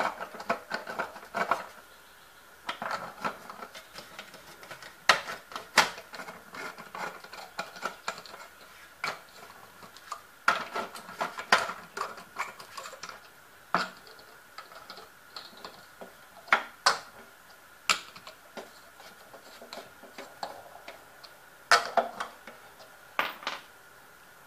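The plastic wheel cover of a Chevrolet Lumina being fitted by hand, its plastic retaining lug caps clicking and knocking as each is put on and tightened: scattered sharp clicks, some in quick clusters. A faint steady high tone runs underneath.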